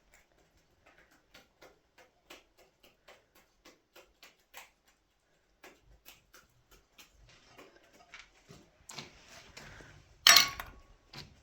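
A run of faint, light clicks or taps, two or three a second, then one loud sharp knock near the end.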